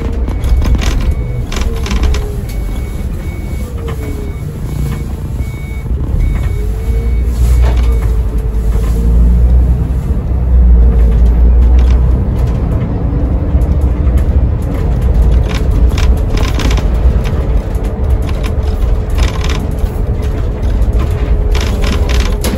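Iveco Crossway Line bus with its Iveco Cursor diesel engine and ZF six-speed automatic gearbox, heard from the driver's cab while driving: a steady low rumble that grows louder around ten seconds in, with a faint whine that rises and falls. A faint repeated beep sounds during the first eight seconds or so.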